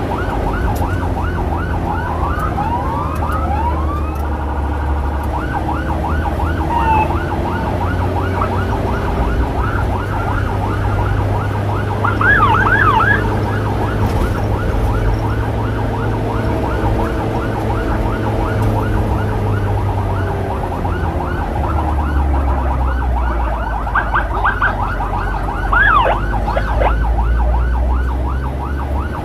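Emergency vehicle sirens in a fast, repeating yelp, sweeping up and down several times a second, over the low running of the motorcycle's engine and road noise. The siren gets louder twice, once midway and once near the end.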